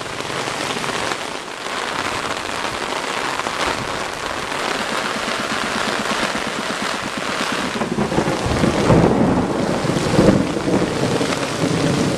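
Heavy rain pouring steadily onto wet pavement. About eight seconds in, a low roll of thunder rumbles in under the rain and carries on.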